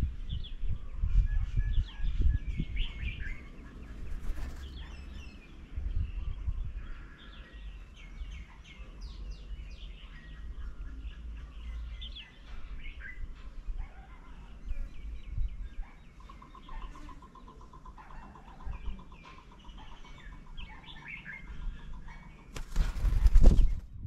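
Several small birds chirping and calling, with low thumps and rumble during the first six seconds and a rapid rattling trill from about sixteen to twenty seconds in. Near the end, a loud burst of noise lasting about a second and a half drowns everything out.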